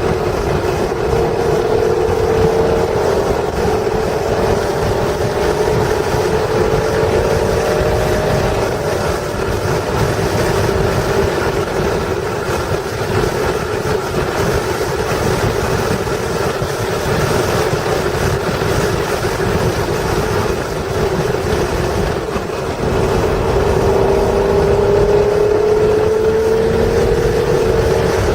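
A stock 1996 Acura NSX's 3.0-litre V6 running hard at speed on track, its engine note climbing slowly in pitch twice as the car pulls through the gears. It sits over a heavy rumble of wind and road noise.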